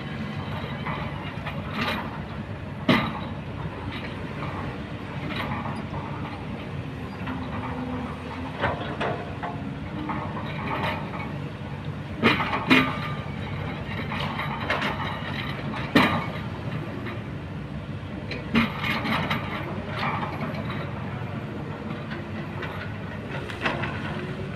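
Kobelco hydraulic excavator's diesel engine running steadily as it digs and swings a load of river stones, with a handful of sharp clanks and rattles from the steel bucket striking and scraping rocks.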